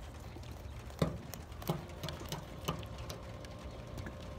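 Fillet knife chopping through a small trout behind the head and striking the metal tailgate beneath: three sharp knocks about a second apart, starting about a second in, with fainter taps between.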